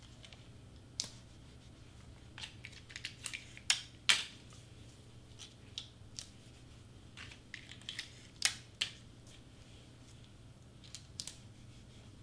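Adhesive tape being torn off the roll and pressed and rubbed down onto cardstock, with paper rustling: a string of short, irregular crackles and clicks, the loudest about 4 and 8.5 seconds in.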